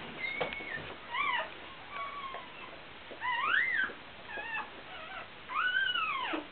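Newborn puppy squealing as its mother licks it: about six short, high, wavering squeals, the last one near the end longer, rising and then falling in pitch.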